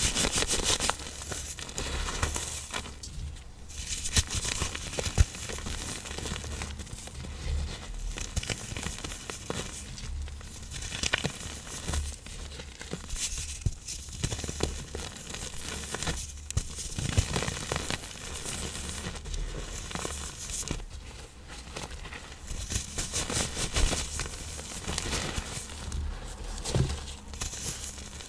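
Reformed blocks of pressed iron oxide powder and cornstarch being crushed, crumbling with a dry, crackling crunch that swells and eases in waves.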